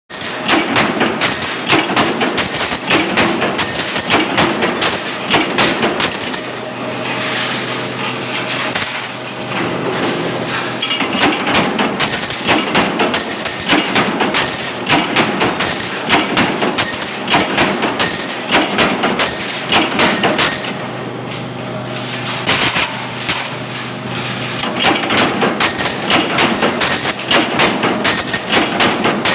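Coin minting press running, stamping with rapid, repeated strikes, with a steady machine hum underneath through the middle stretches.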